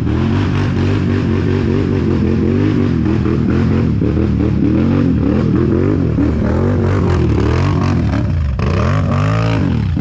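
Quad bike (ATV) engine revving hard as it climbs a steep dirt slope, its pitch rising and falling again and again under the throttle, with several quick blips near the end.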